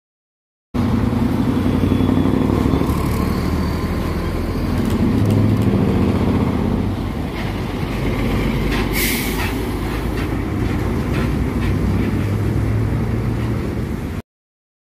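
Diesel engine of a Freightliner tractor-trailer with a flatbed trailer running steadily as it drives past close by, with road noise. The sound grows louder around five seconds in, and there is a short sharp hiss about nine seconds in. The sound starts and stops abruptly.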